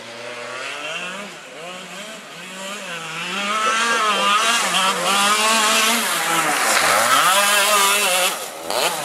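Two-stroke go-kart engine revving up and down through the corners, growing louder as the kart comes near. The revs drop briefly about seven seconds in, then climb again.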